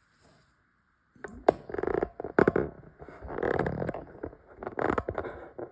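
Close handling noise: loud, irregular rubbing and scuffing with several sharp knocks, as things are moved right against the phone's microphone.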